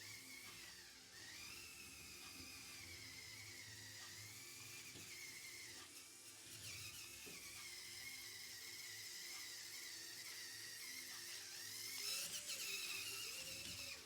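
Small electric motor of a Lego Technic truck model whining steadily through its plastic gears, the pitch wavering slightly with load. It starts and stops abruptly and grows louder a little before the end.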